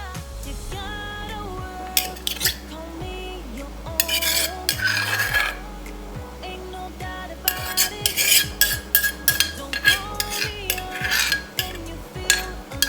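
Kitchen utensils clattering and scraping in a mortar as som tam is mixed, in bursts of quick knocks, with background music throughout.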